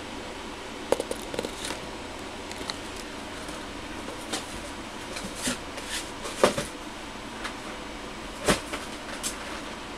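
Boxed model kits being handled off to the side: scattered knocks and rustles of cardboard, the loudest about six and a half and eight and a half seconds in, over a steady hiss.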